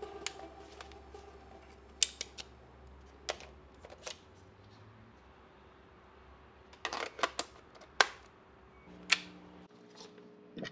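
Scattered sharp plastic clicks and handling noise from a Canon camera, its battery and its charger being handled. One click about two seconds in is the loudest, and a quick run of clicks comes about seven seconds in, as the battery is fitted to the charger.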